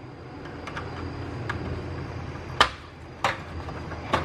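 Sharp clicks and knocks of parts being taken off and handled on an induction cooktop under repair, over a low steady hum. They are scattered, with two louder knocks a little past halfway, under a second apart.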